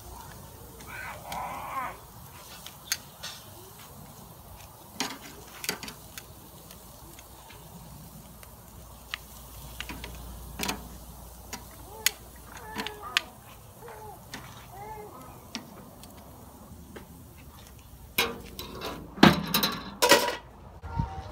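Metal tongs clicking and scraping against the iron grate of a charcoal grill as pork ribs are turned, in scattered sharp clicks. A louder spell of clattering noise comes near the end.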